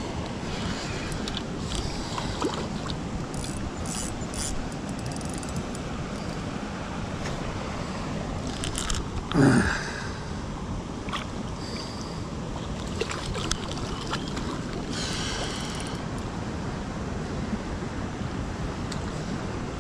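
Steady wind noise rushing on the microphone, with scattered clicks and handling noises from the rod and spinning reel. About halfway through comes one brief, louder sliding sound.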